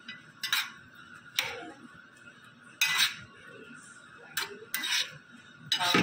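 Metal spoon stirring berries in a small pan, scraping and clinking against the pan in short, irregular strokes about once a second.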